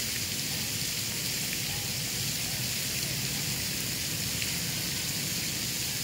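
Steady outdoor background hiss with a low rumble underneath and no distinct events.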